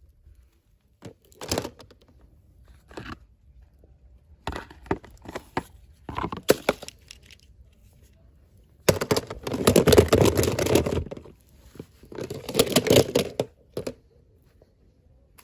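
Toy packaging being torn open and crinkled by hand: a few short crackling rustles, then two longer spells of tearing and crumpling, the first the loudest.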